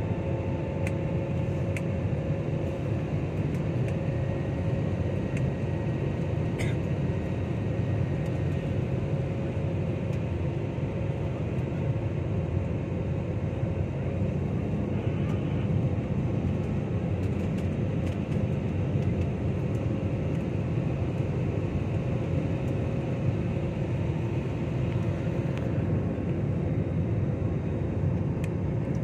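Steady cabin noise of a jet airliner in flight: a dense low rumble of engines and rushing air, with a few faint steady hums over it.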